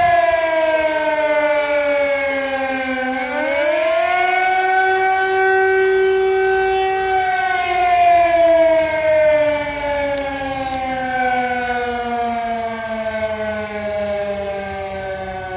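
Civil defence alert siren wailing during a routine siren test: its pitch sinks over the first few seconds, swings back up about three seconds in, holds, then slides slowly down to the end.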